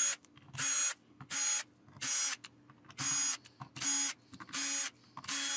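Cordless drill-driver backing out a guitar's pickguard screws: about eight short runs of motor whine, each under half a second, one after another with brief pauses between.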